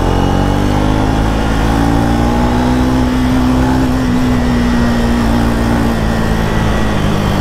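Triumph Speed 400's single-cylinder 400 cc engine pulling under throttle while riding, its note rising over about the first four seconds and then levelling off and easing slightly, over a steady rush of wind and road noise.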